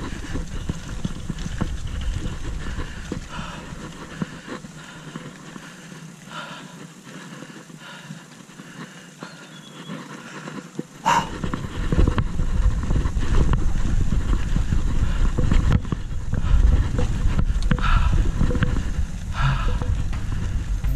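Mountain bike riding over a rough dirt trail: tyre noise on the dirt with the bike's chain and frame clattering over bumps. About eleven seconds in it grows much louder, with a heavy low rumble from wind on the microphone.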